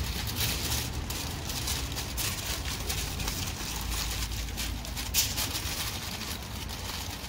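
Aluminium foil crinkling and rustling as it is folded and pressed tight around a rack of ribs, with a sharper crackle about five seconds in.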